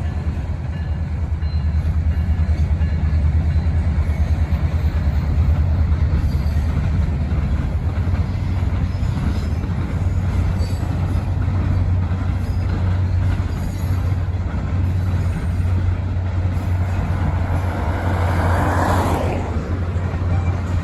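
Canadian Pacific Holiday Train's diesel locomotives and cars rumbling by in a loud, steady, pulsing low drone. A brief rising-and-falling rush of higher-pitched hiss comes near the end.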